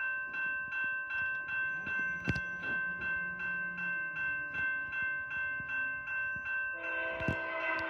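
Railway crossing bell ringing in a rapid, even pulse of about three strokes a second. Near the end the approaching Canadian Pacific train's locomotive horn comes in, several steady notes sounding together.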